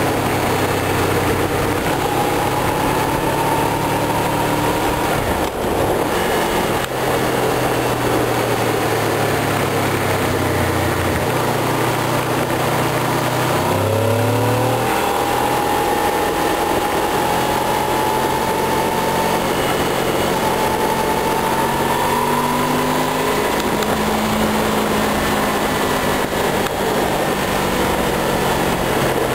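Honda VFR800 V4 sport-bike engine running under way, heard from the rider's seat with wind rush over the microphone. The engine note holds steady, then revs rise sharply about halfway through before settling back to a steady cruise.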